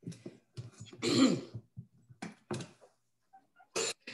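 A woman coughing and clearing her throat in several short fits, the loudest and longest about a second in.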